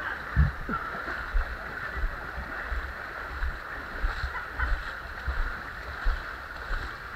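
Several people wading and jogging through shin-deep muddy floodwater, feet splashing and sloshing irregularly, over a steady high-pitched animal chorus.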